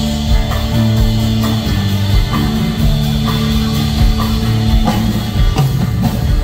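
Live rock band playing loudly through a PA: electric guitar over a drum kit, with a steady beat.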